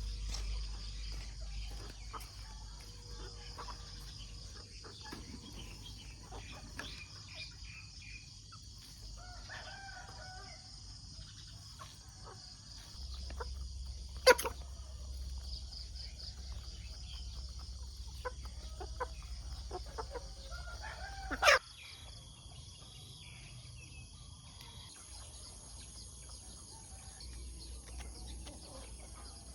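Chickens in a farmyard: a rooster crowing and hens clucking over a steady high insect buzz. Two sharp knocks stand out, one near the middle and one about two-thirds of the way through.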